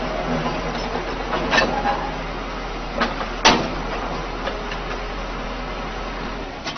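Excavator running steadily, with a few sharp metal clanks, the loudest about three and a half seconds in.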